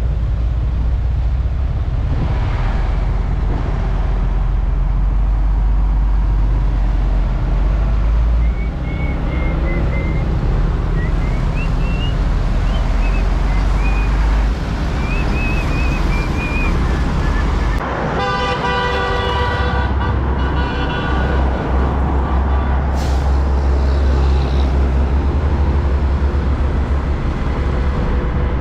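Heavy road traffic with container trucks' diesel engines rumbling close by. A vehicle horn sounds for about two seconds a little past the middle.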